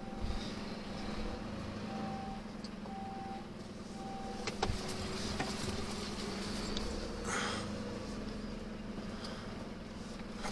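Lorry's reversing alarm beeping about once a second over the diesel engine running, heard from inside the cab while the truck backs in. The beeps stop with a click about four and a half seconds in, and a short hiss comes a few seconds later.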